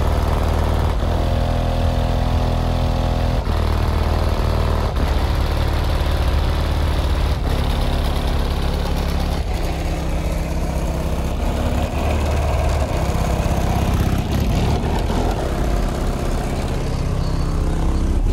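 Bass-heavy music from a car stereo's subwoofers, heard from outside the vehicle: deep notes held for a second or two at a time, each stepping to a new pitch, over a steady haze.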